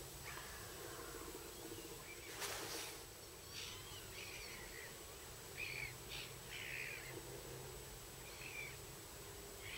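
Faint bird calls: a handful of short calls scattered through, over a steady low hum. A brief rush of noise comes about two and a half seconds in.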